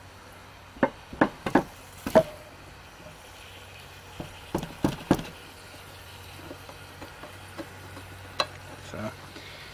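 A Buck knife blade being driven and levered through the lid of a steel food can: a string of separate sharp metallic clicks and knocks, a few in the first two seconds, a cluster about halfway through, and a couple more near the end.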